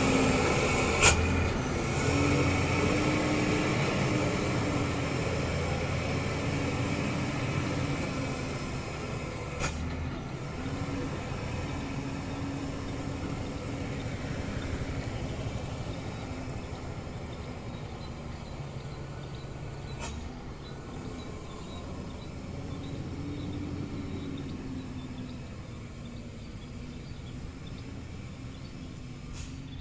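Heavy diesel truck engine labouring steadily up a steep climb and slowly fading as the truck draws away, with a sharp click about a second in and a few fainter clicks later.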